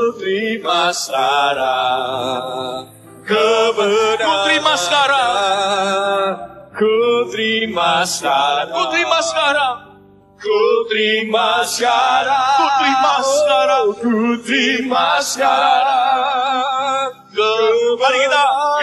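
Church worship singing: a slow song sung in long held phrases with a wavering, vibrato pitch, broken by short pauses every few seconds.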